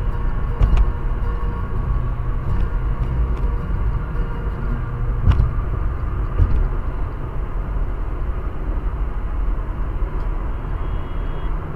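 Steady low road and engine rumble of a car cruising on a highway, heard from inside the cabin, with a few faint clicks.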